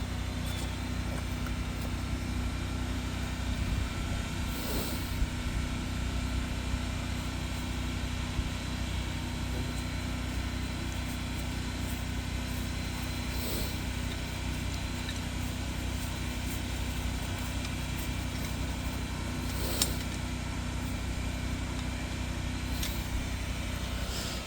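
Engine of a high-pressure sewer jetter running steadily, a constant low hum, with a few faint brief clicks over it.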